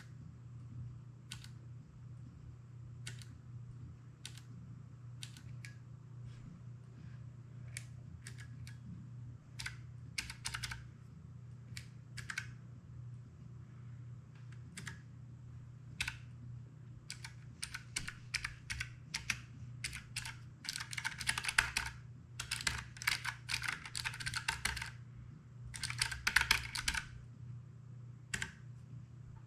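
Keys of a Keychron K3 low-profile mechanical keyboard being pressed: scattered single keystrokes at first, then fast runs of typing in the second half. A steady low hum runs underneath.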